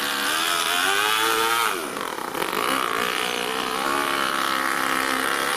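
Toyan FS-L200 two-cylinder four-stroke nitro engine driving an RC car, revving up over the first second or so. Its revs drop sharply about two seconds in, then pick back up and hold steady.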